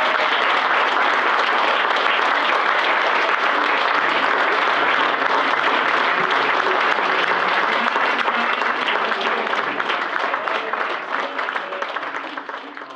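Theatre audience applauding steadily, the clapping fading away near the end.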